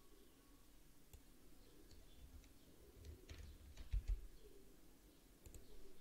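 Computer mouse clicking quietly: scattered light clicks, with two louder clicks in quick succession about four seconds in.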